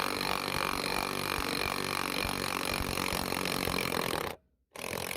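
Impact wrench hammering as it drives a steering wheel puller to push a seized lawnmower rim off its axle shaft. It runs in one long burst, stops about four seconds in, then gives one short burst near the end.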